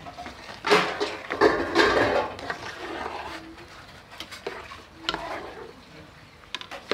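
A long metal spoon stirring rice through boiling water in a metal pot, scraping and knocking against the pot's sides. It is busiest in the first couple of seconds, then settles into lighter, scattered clinks.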